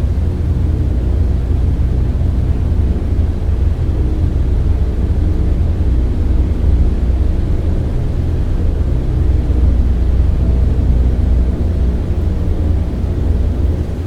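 Airplane in-flight noise: a deep, unchanging drone with a heavy low rumble and a few faint steady tones layered over it.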